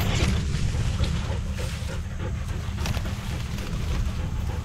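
Reed stalks and grass rustling and crackling as they are pushed aside by hand, a few louder swishes spread through, over a steady low rumble of wind on the microphone.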